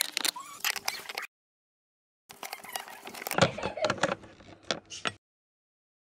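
Clicks, taps and scrapes of an allen key and gloved hands working the screws of a plastic air-filter box cover. The sounds come in two short bursts, each cut off abruptly into dead silence, with the sharpest knock about three and a half seconds in.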